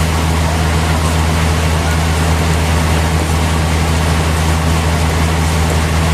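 Sawmill machinery running steadily: a constant low engine-like hum with a hiss over it and no change in load.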